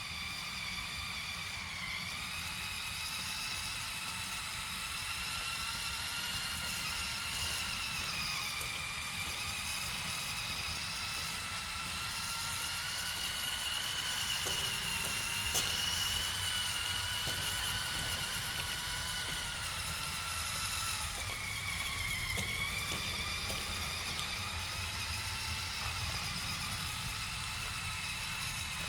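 JJRC C8815 Willys Jeep RC car's electric motor and gears whining steadily, the pitch rising and falling with the throttle as it drives off-road, over a low rumble.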